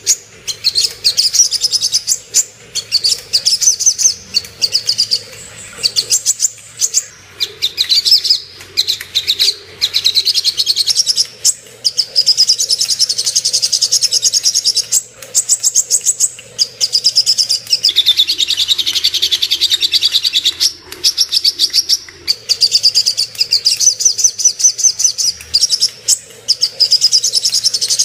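Sogok ontong (little spiderhunter) singing: long runs of rapid, high-pitched chirps, broken by short pauses every few seconds. It is a lure call meant to excite other birds of its kind.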